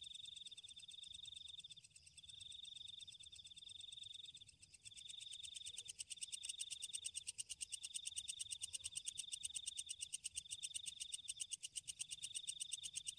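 Faint night chorus: a high, rapidly pulsed trill, sung in phrases of a second or two with short breaks, growing a little louder about five seconds in.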